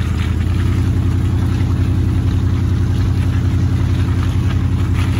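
A vehicle engine idling steadily, a low, even hum that holds at one speed.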